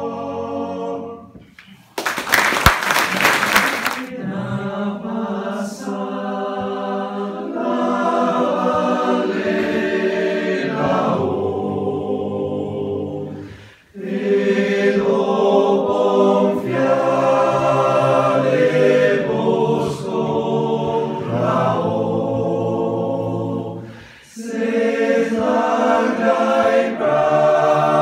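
Male choir singing a cappella in several voice parts, in long held phrases with short breath pauses between them. About two seconds in, a loud burst of noise lasting about two seconds cuts across the singing.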